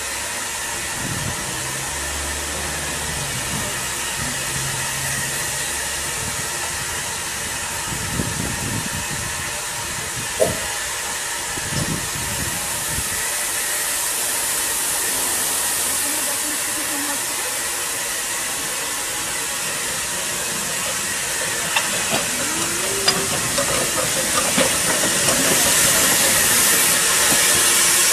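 Narrow-gauge steam locomotive standing with a steady hiss of steam, which grows louder in the last few seconds, with a few light knocks and clicks.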